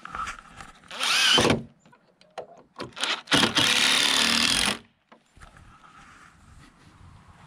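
Makita 18V cordless impact driver driving screws into wood. There is a short burst about a second in, then a few brief blips, then a longer run that stops suddenly as the screw seats.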